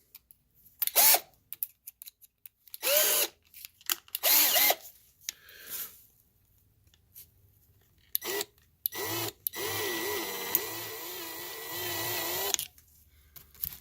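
Small power drill drilling out the roof rivet of a die-cast toy car. It is run in several short bursts that spin up and back down, then held running steadily for about three seconds near the end.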